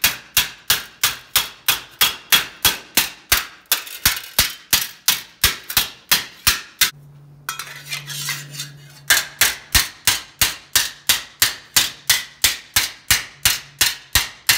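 Wooden mallet striking a steel embossing taper to emboss sheet steel over a steel swage block: sharp knocks at about three a second, pausing for about two seconds midway, then resuming.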